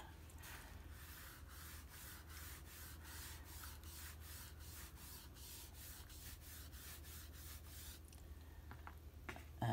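Foam-tipped applicator rubbing orange PanPastel onto card stock in quick back-and-forth strokes, about three a second: a faint, scratchy rubbing that stops about 8 seconds in.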